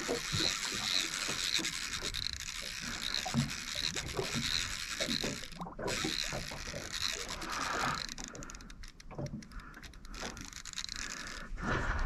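Spinning reel under load from a hooked fish, its mechanism ticking lightly and regularly, about two ticks a second, with rubbing and handling noise. The angler believes a shark has taken the fish.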